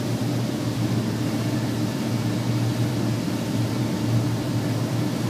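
Flattening rolling mill running with a steady machine hum.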